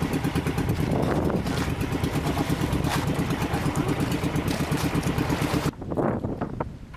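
Inboard engine of the outrigger pumpboat being filmed from, running steadily with a fast, even chugging beat. Near the end it cuts off abruptly to a much quieter stretch with a few short scuffs.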